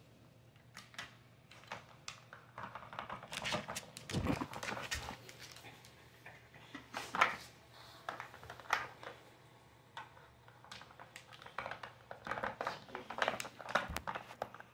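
A corgi working a plastic watermelon-shaped puzzle feeder with its nose: irregular clicks and clatters of the plastic pieces being pushed and lifted, in short flurries.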